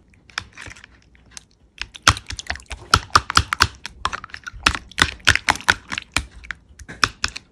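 Slime being pressed and poked by hand, giving a quick irregular run of sharp clicking pops that starts about two seconds in.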